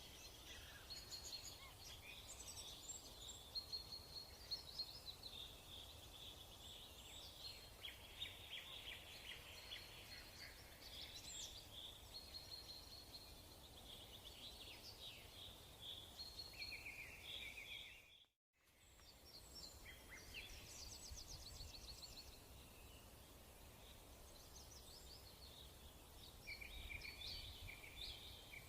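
Faint chirping and singing of several small birds, many short chirps and trills overlapping, over a faint low hum. The sound drops out completely for a moment about two-thirds of the way through.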